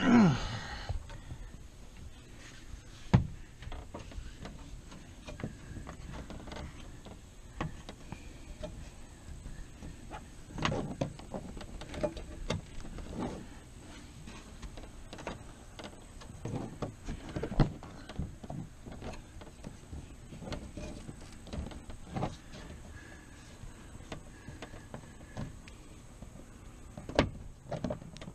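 Hands working a pop-up camper's canvas into its aluminium rail: canvas rustling and sliding, with scattered knocks and thumps against the metal track and camper body. The loudest moments are a short squeak falling in pitch right at the start and a sharp knock about three seconds in.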